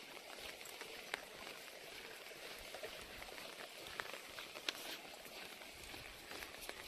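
Light rain falling: a soft, steady hiss with a few scattered sharp ticks, about a second in and again around four and five seconds in.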